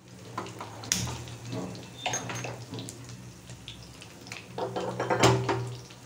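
Handheld spark gas lighter clicking at a gas stove burner as the burner is lit, with a steady low hum under it. About five seconds in, a metal pressure cooker is set down on the burner's pan support with a clatter, the loudest sound.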